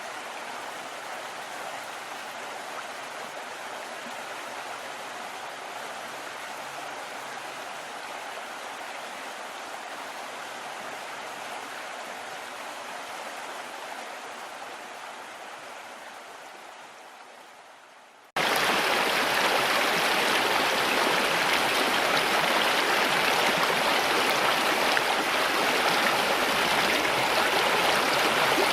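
Flowing river water, a steady rushing hiss. It fades down over a few seconds, then about two-thirds of the way through cuts suddenly to a louder, brighter rush of water.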